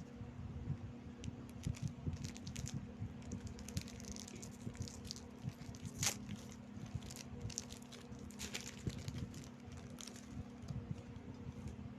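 Close-up crunching and crinkling from eating Rebisco crackers: irregular crisp crackles of chewing and handling the plastic wrapper, over a steady low hum.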